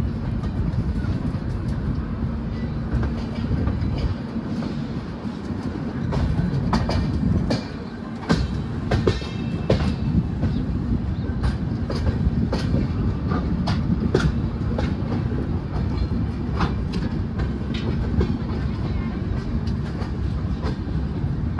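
Passenger train coaches running along the track, heard from an open doorway: a steady low rumble with irregular clacks and knocks as the wheels cross rail joints and points.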